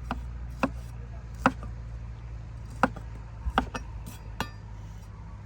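Knife chopping food on a cutting board: about seven sharp, irregular strikes over a steady low hum.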